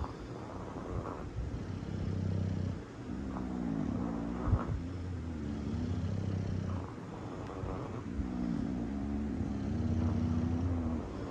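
Bulldog snoring: a low, rattling snore that swells and fades breath by breath. There is a single sharp click about four and a half seconds in.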